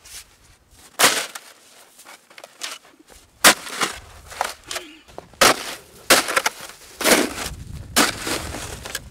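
Snow shovel blade scraping and chipping at packed snow and ice on pavement, in about six sharp, separate strokes spread a second or so apart.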